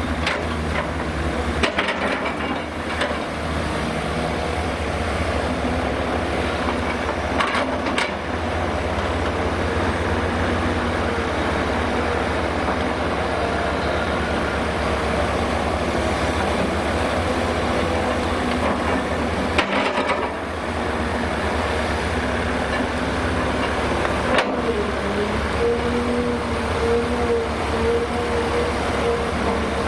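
Heavy diesel earthmoving machinery working: a Hyundai Robex 300LC-9S crawler excavator and Cat 730 articulated dump trucks run steadily, with a few sharp clanks. A steady whine comes in near the end.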